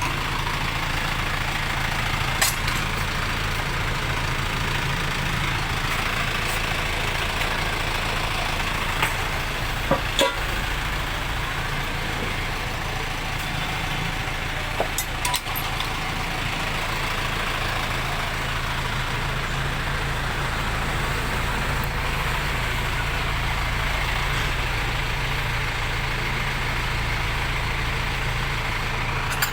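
Steady hum of a running vehicle engine with a few short, sharp metallic clicks or clinks scattered through it.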